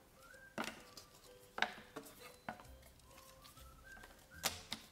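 Cardboard jigsaw-puzzle pieces of a game board being fitted together and pressed down on a table: a handful of separate light taps and clicks, the sharpest about a second and a half in.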